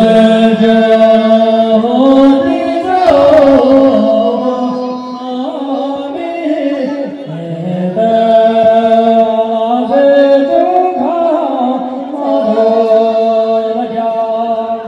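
A voice singing slow, long-held notes that step up and down in pitch, starting abruptly at full volume, in the style of a chant.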